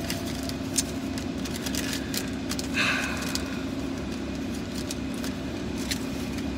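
Steady hum inside an idling car's cabin, with a few light clicks and a short rustle about three seconds in.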